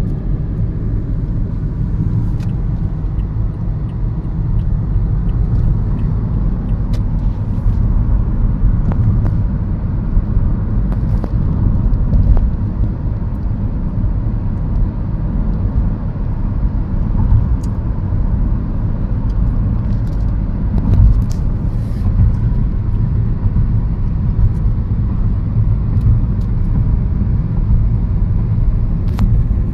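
Steady low rumble of road traffic: car engines and tyres running continuously, with a few faint clicks.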